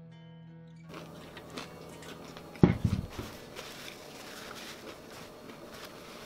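Eating sounds as the last waffle fries are chewed. About two and a half seconds in a bowl is set down on the table with a sharp knock, followed by a short low grunt-like sound. Then a paper napkin rustles as hands and mouth are wiped.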